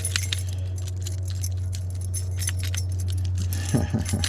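Small metal clicks and light rattling of lock parts being handled as a lever handle lock is put back together after rekeying, over a steady low hum.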